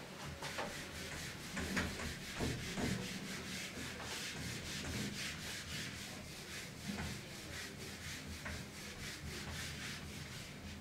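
Whiteboard eraser rubbing back and forth across a whiteboard, a long run of quick, even scrubbing strokes as the board is wiped clean.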